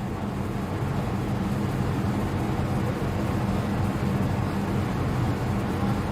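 A machine running with a steady low hum under an even whooshing noise.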